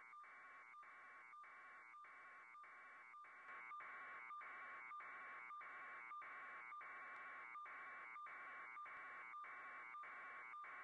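Near silence: a faint steady hiss that breaks off briefly about three times a second, growing slightly louder about three and a half seconds in.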